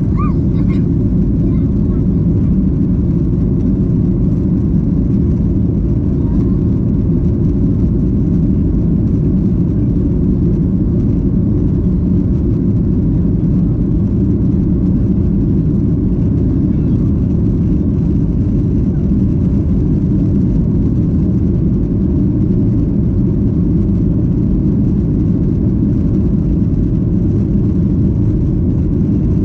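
Steady, loud low rumble of a Boeing 737-800's cabin, the CFM56 engines and airflow heard from a passenger seat. It stays constant throughout.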